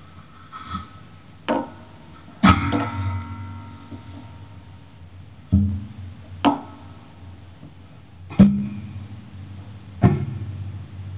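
Spring noise box, its coil springs on an aluminium enclosure plucked and heard amplified. About seven sharp twangs a second or more apart each ring on briefly with a low metallic hum, the loudest about two and a half seconds in.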